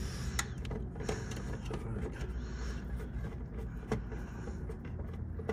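Scattered light clicks and rustles from hands working the wiring inside an old air handler's electrical box, over a steady low hum.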